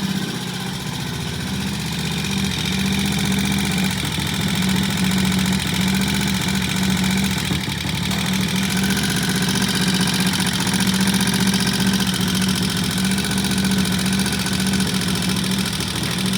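Triumph Tiger Cub T20M's single-cylinder four-stroke engine idling steadily.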